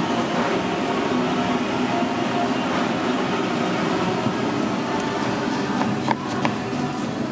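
Steady roar of kitchen ventilation fans, with a few sharp knife clicks on a cutting board about six seconds in as a lemon is cut.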